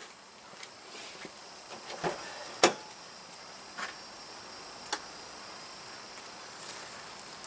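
A few sharp clicks, the loudest a pickup truck's driver door being unlatched and opened, with quieter clicks around it as someone reaches in for the headlight switch.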